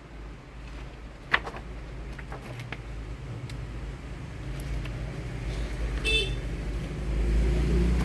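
Low rumble of a passing motor vehicle growing louder, with a sharp click a little over a second in and a brief high toot, like a horn, about six seconds in.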